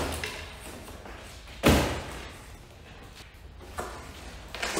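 Taut plastic pallet strapping being cut and snapping free with a sharp slap about two seconds in, followed by the rustle and knock of a large cardboard box being handled.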